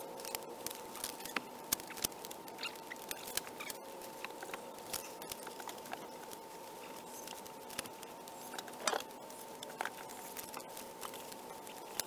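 Irregular light clicks and taps of 10 mm copper microbore tube knocking and rubbing against itself as it is wound into a coil by gloved hands, with a louder knock about nine seconds in. A faint steady high tone hums underneath.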